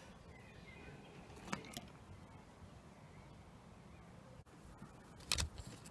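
Quiet handling of metal engine parts: a faint click about a second and a half in, and a dull knock near the end as a part is set down.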